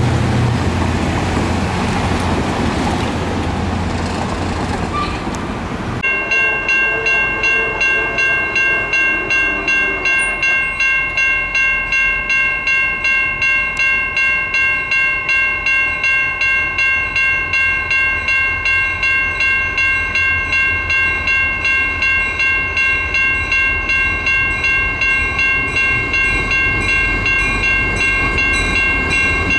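A passenger diesel locomotive rumbling past for the first few seconds. Then a railroad grade-crossing bell ringing steadily, about two strikes a second, as a freight locomotive approaches with a low engine rumble rising under it near the end.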